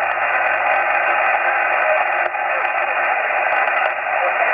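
Steady static hiss from a shortwave receiver tuned in upper-sideband mode to 8033 kHz, heard in a gap between the spoken number groups of a Russian numbers station.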